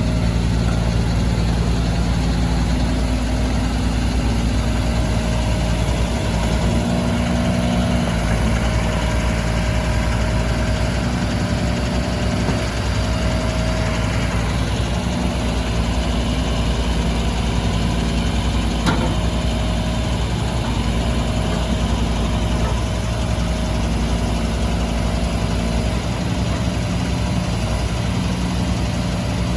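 Jining W35 3.5-tonne zero-tail mini excavator's engine idling steadily, with a single sharp click about two-thirds of the way through.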